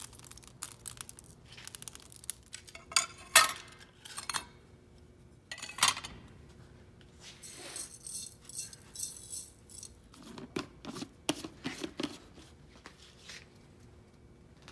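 Irregular clinks, knocks and scrapes of glass and kiln furniture being handled while a glass kiln is loaded, with a few sharper knocks about three to six seconds in.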